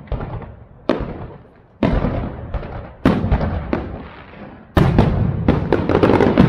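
Aerial fireworks shells bursting: sharp bangs each followed by a rolling echo that dies away, about one a second at first, then a rapid cluster of bangs in the last two seconds.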